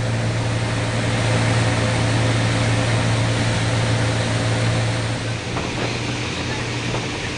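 Motorboat engine running at speed, a steady low drone over the hiss of rushing water and wind; the sound eases slightly and changes about five seconds in.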